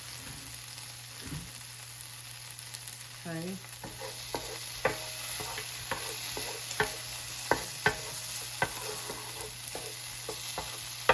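Pieces of curry-seasoned goat sizzling in hot oil in a pot while being stirred, with sharp clicks of the stirring utensil against the pot every second or so in the second half.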